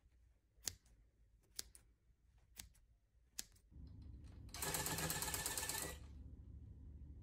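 Scissors snipping yarn tails, four single snips about a second apart, then an electric tufting gun starts running, punching yarn into the backing cloth: a steady machine sound, louder for about a second and a half before dropping back.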